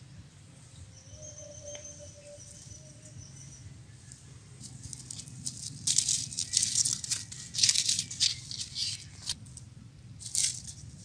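Dry grass, weeds and cloth rustling and crackling in irregular scratchy bursts as a baby monkey and a puppy wrestle on the ground, loudest in the middle of the stretch with one more burst near the end. About a second in, a faint held tone lasts a couple of seconds.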